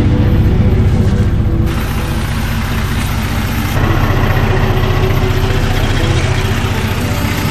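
Four-wheel-drive's engine idling close by with a fast, even pulsing.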